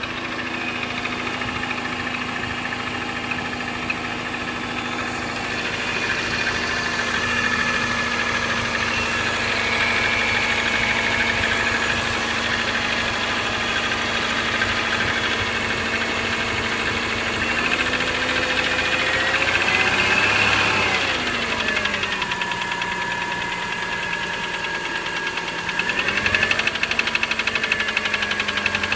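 2003 Subaru Forester XS 2.5-litre flat-four engine running cold with a rapid ticking/knocking, which the owner suspects may be piston slap. The engine speed rises and falls about two-thirds of the way through, then rises again near the end, and the knock changes with throttle.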